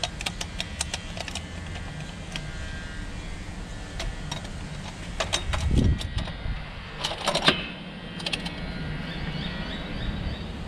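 Metal parts clicking and clinking as an aluminium air-filter base plate is handled and fitted over velocity stacks on individual throttle bodies. A dull knock comes just before the middle, followed by a short cluster of louder clicks, over a steady low hum.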